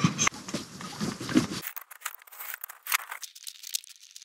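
Gloved hands rubbing a cloth over a plexiglass window, giving irregular scratchy rustles and small clicks that thin out after about a second and a half.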